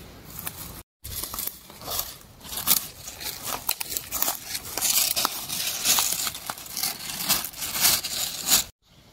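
Dry leaves and twigs crackling and rustling, a dense run of small cracks and crinkles that cuts out briefly about a second in and again near the end.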